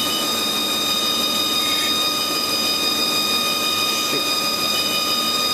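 HAAS TL-3 CNC lathe spindle turning aluminium bar stock, running at a steady speed with a steady high whine.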